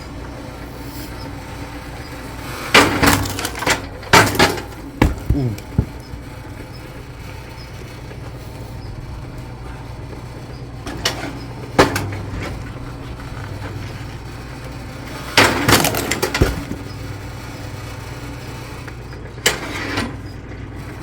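Engine-driven hydraulic log splitter running steadily, with loud cracks and knocks as firewood logs are split, several times at irregular intervals.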